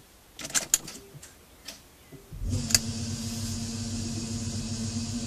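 A few clicks from the ignition key and relays, then about two seconds in a sharp clunk as the converted BMW 840Ci's Siemens electric drive system and electric power-steering pump power up. They settle into a steady hum with a held whine and faint hiss.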